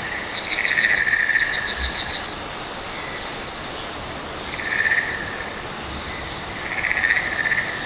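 Trilling, frog-like calls in three bouts: a long one about a second in, a short one near five seconds and another near the end. They sound over the steady rush of a small waterfall.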